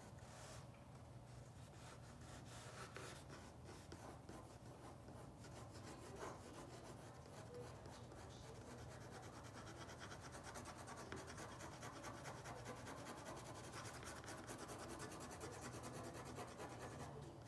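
Faint, continuous scratchy rubbing of an art tool stroked rapidly back and forth across paper, getting busier about halfway through.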